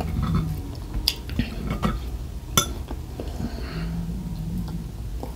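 A fork clinking and scraping on a breakfast plate while cutting pancake, with a few sharp clinks scattered through.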